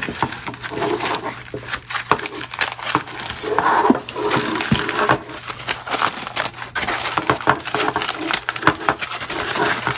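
Aluminium foil wrapping being crinkled and peeled open by hand: a dense, continuous crackle.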